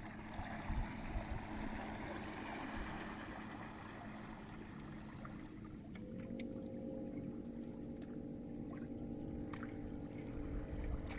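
Small electric outboard motor running with a steady whine as the plywood boat pulls away, with water washing against the hull. About six seconds in, a higher whine joins and holds.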